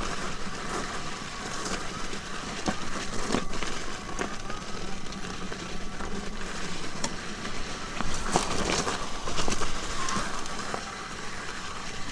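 Commander electric unicycle rolling over a loose gravel dirt trail: a steady rumble from the knobby tyre, with many small crackles and clicks from stones under it and a faint motor whine.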